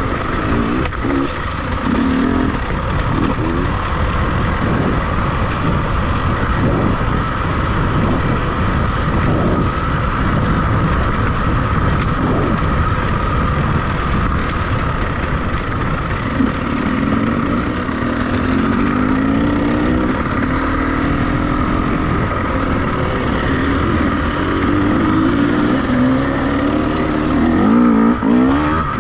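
Off-road vehicle engine running under a constant rumble, its pitch rising and falling as it revs, most clearly in the second half.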